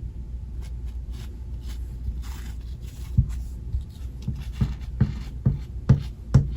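Scattered light taps and scrapes over a steady low hum, more frequent in the second half, cutting off abruptly at the end.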